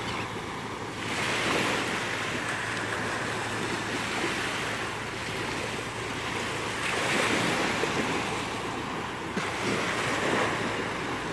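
Gentle surf: small waves breaking and washing up the sand at the water's edge. The wash swells louder about three times.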